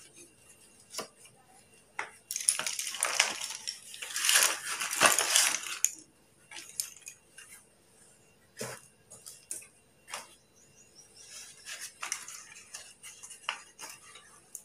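Slate pencils clattering against each other as a boxful is tipped out onto a plastic-wrapped paper plate: a dense rattle from about two seconds in that stops at about six seconds. After that come scattered light clicks as pencils and the next cardboard box are handled.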